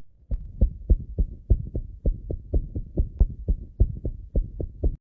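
Heartbeat heard through a stethoscope: a quick, even run of dull thuds, about four a second, with a faint hiss between them.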